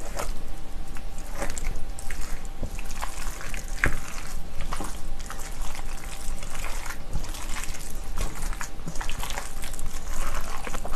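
Bibimbap being mixed with a spoon in a large stainless steel bowl: wet squishing of sauced rice and vegetables, with frequent small clinks and scrapes of the spoon against the bowl.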